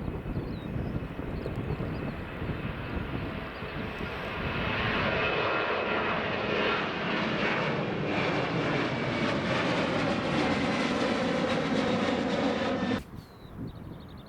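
Boeing 737-800 jet engines at takeoff power, a steady roar that swells about four seconds in, holds loud, and cuts off suddenly near the end.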